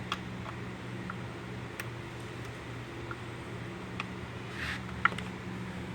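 A 4 mm Allen wrench working the bolts on the bottom of an electric trike's controller box: a few scattered light metallic clicks and a short rustle over a steady low hum.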